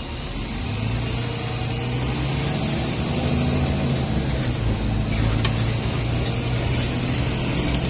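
City bus engine running as the bus drives along a street, heard from inside: a steady low hum over road noise that gets louder about a second in.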